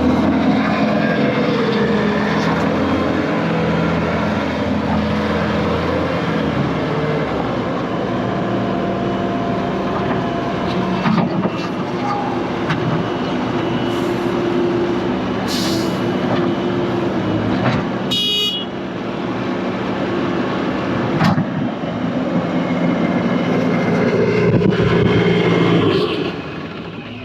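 Bobcat S510 skid steer's diesel engine running under load, its note shifting up and down in pitch as the machine is worked. A brief high-pitched tone sounds about two-thirds of the way through, and the engine note drops just before the end.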